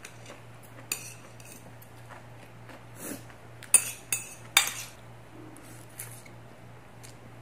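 Metal chopsticks clinking and scraping against ceramic plates as noodles are picked up, with three sharp clinks a little past halfway.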